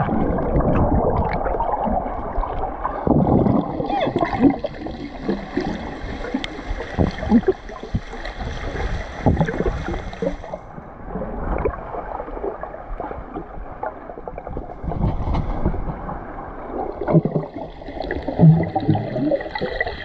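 Water heard through a camera held under water: muffled churning and gurgling with bubbles, broken by many small clicks and knocks as swimmers dive to the bottom.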